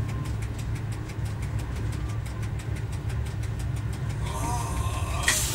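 Y1 railcar's rebuilt Volvo engine running with a steady low rumble, heard inside the driver's cab as the railcar rolls slowly, with a fast even ticking over it. Near the end, a brief higher squeal and then a sharp click.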